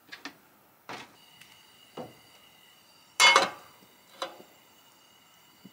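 Cookware and utensils knocking and clinking: several short knocks, with one louder clatter about three seconds in.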